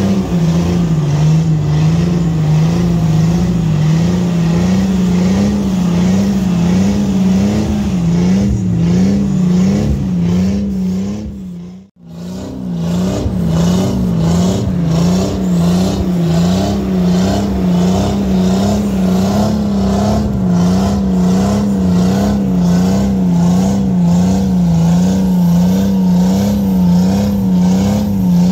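Off-road 4x4 engine running hard under load in mud, its revs rising and falling in a steady, even wobble. The sound drops out briefly near the middle, then carries on the same way.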